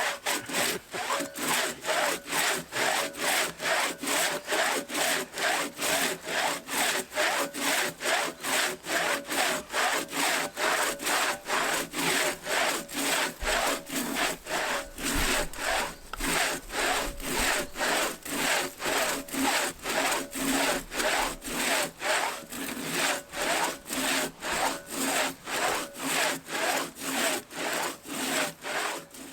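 Hand saw cutting through a felled spruce log in steady back-and-forth strokes, about two a second, keeping an even rhythm throughout.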